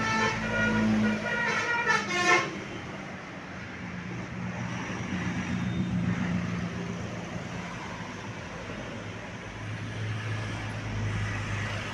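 A tour bus's multi-tone 'telolet' musical horn plays a quick run of notes for about two and a half seconds. Then comes the low hum of the bus engine and road noise.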